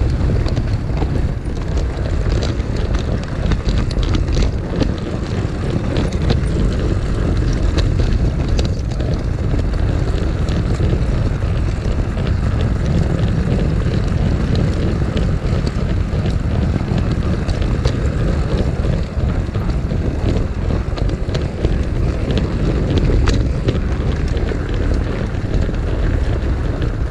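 O gauge model train running along garden-railway track, heard from a camera riding on the train. There is a steady low rumble of wheels on the rails, with frequent light irregular clicks.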